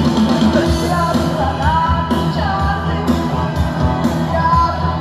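Pop-rock music with a singing voice over a steady beat.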